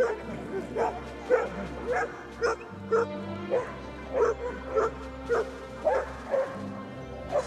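Rough collie barking repeatedly, short barks about twice a second, over background music.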